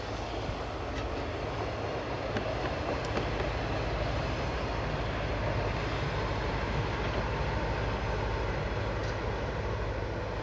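Plasser & Theurer 08-32 Unimat 4S track tamping machine travelling past on the rails, its diesel engine running steadily with wheel and rail noise. The sound swells a little in the middle as it goes by, then eases.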